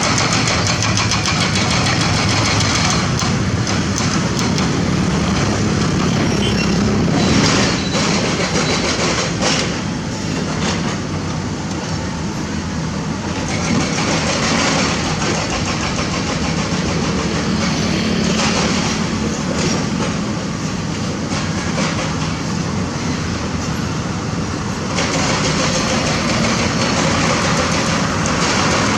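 Heavy diesel construction machinery running steadily under load. There are a few short knocks, and the engine sound is a little quieter through the middle and picks up again near the end.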